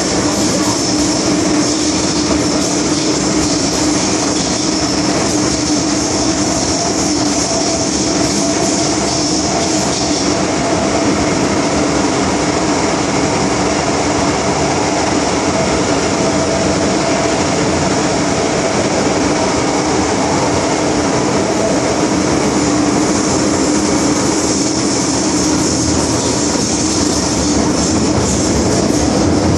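MTR Island Line M-Train electric multiple unit running through the tunnel, heard inside the carriage: a steady loud rumble and hiss of wheels on rail and rushing air, with a steady hum under it.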